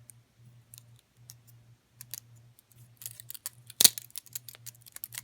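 Benchmade 51 butterfly knife being flipped: quick metallic clicks and clacks of the handles and pins. The clicks come sparsely at first and get busier about three seconds in, with one loud clack just before four seconds.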